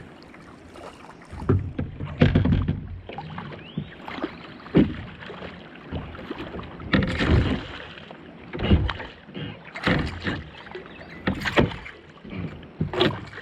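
Irregular knocks and thumps against the hull of a small boat, about eight of them, over a low rumble.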